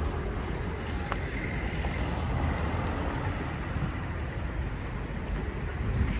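Street ambience of road traffic running past, a steady low rumble with a brief click about a second in.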